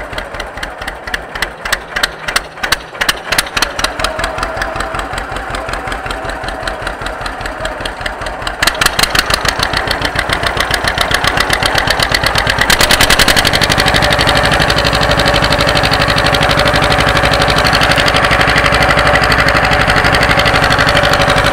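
John Deere 530's two-cylinder engine idling slowly at about 500 rpm with distinct, separate exhaust beats, barely into the governor. The throttle is opened in two steps, about nine and about thirteen seconds in, and the engine settles into a faster, louder steady run.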